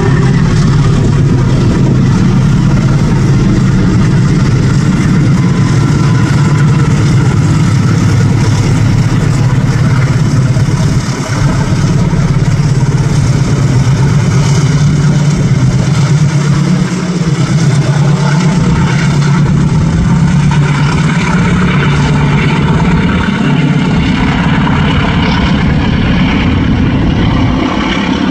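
Transnet Class 35 diesel-electric locomotives passing close by, their engines running with a loud, steady low drone under a haze of rolling noise.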